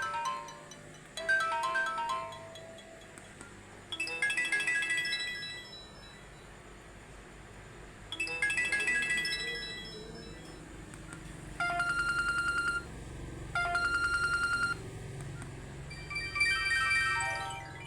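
Samsung Hero 3G (SM-B109H) ringtones playing one after another: short electronic chime melodies every few seconds, then two buzzing rings of about a second each, then a quick run of notes stepping down and up near the end.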